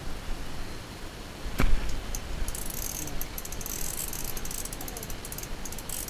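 A single thump about a second and a half in, then a rapid run of fine clicking from a fishing reel for a few seconds.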